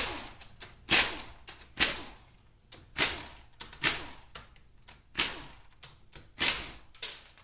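A ratchet working the 10 mm valve-body bolts of an automatic transmission: a sharp crack about once a second, about eight in all, each dying away quickly.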